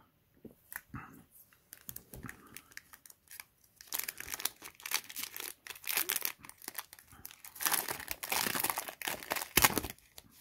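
Foil booster pack wrapper being torn open and crinkled. A few light rustles and clicks come first, then dense crackling crinkles from about four seconds in, loudest near the end.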